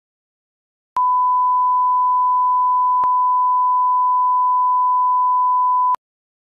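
Bars-and-tone line-up test tone: one steady electronic beep at a single pitch, lasting about five seconds, with a faint click partway through.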